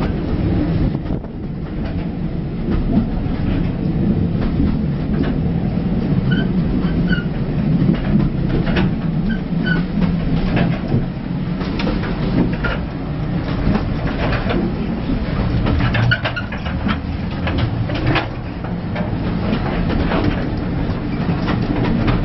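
Passenger carriage of a heritage steam railway heard from inside while running along the line: a steady low rumble of the wheels on the track, with frequent irregular knocks and rattles from the coach.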